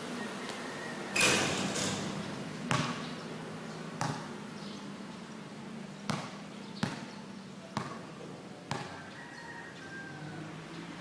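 Basketball bouncing on a court: about seven sharp thuds at uneven intervals.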